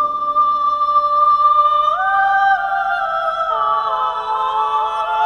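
Background music of unaccompanied voices: one high note held steadily, stepping up about two seconds in, then joined by other parts in slow, sustained harmony.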